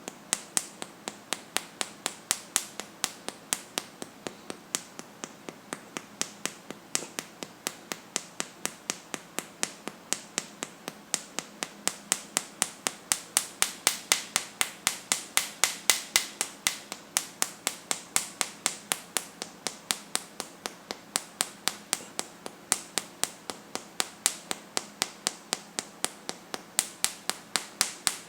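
A hand slapping the upper chest below the collarbone over the Zhongfu and Yunmen acupoints, in acupressure patting massage. The sharp pats run steadily at about three to four a second and grow louder in the middle stretch.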